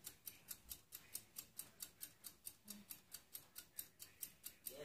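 Faint, rapid, perfectly even high-pitched ticking, about six or seven ticks a second.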